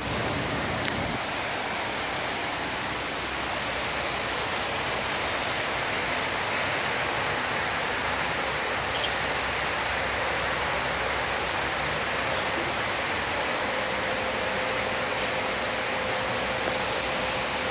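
Heavy rain falling steadily: a dense, even hiss of rain that does not let up.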